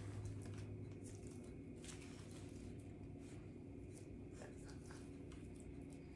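Faint, scattered rustling and crinkling of a plastic bag as sequined costume pieces are pulled out and handled.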